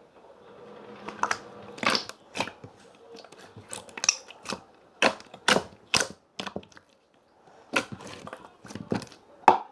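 A large slime being squeezed and kneaded in the hands, giving irregular wet clicks and pops as air pockets burst, with a short pause about two thirds of the way in.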